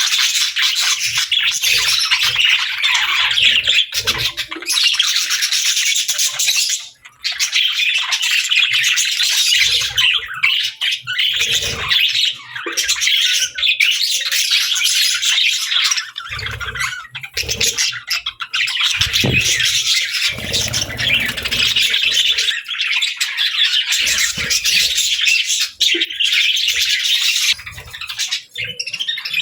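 A flock of budgerigars chattering, a dense continuous mix of chirps, warbles and squawks. Occasional low thumps can be heard under the chatter.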